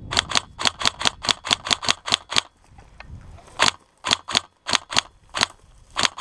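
Airsoft guns firing rapid single shots: about ten sharp cracks in the first two and a half seconds, a short pause, then another string of about seven.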